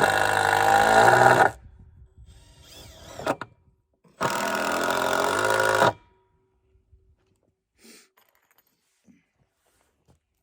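Power drill driving screws into boards, running in two bursts: one at the start lasting about a second and a half, another about four seconds in lasting a little under two seconds, each with a whine that rises as it spins up.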